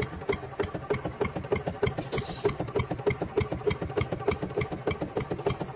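Small engine idling with a steady, rapid putter of even knocks, the sound of a two-wheel walking tractor's engine.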